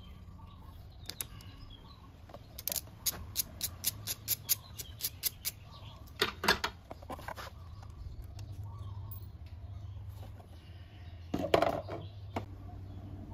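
A 3/8-inch ratchet clicking about four times a second as the 12 mm oil check bolt is backed out of a Honda PCX 150's final drive case. Then a few knocks and, near the end, a louder clatter as a metal drip pan is set under the case.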